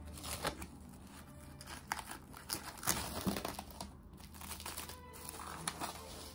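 Plastic cling film crinkling and crackling as hands peel it off a glass bowl, in irregular rustles and crackles, loudest about three seconds in.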